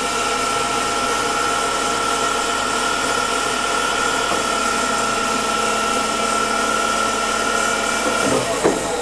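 Beka-mak BMSO 320GLH hydraulic metal-cutting bandsaw cutting a workpiece on its automatic cycle: a steady whine from the running blade and drive, with a lower hum joining about halfway. Both stop shortly before the end as the cut finishes and the saw head lifts.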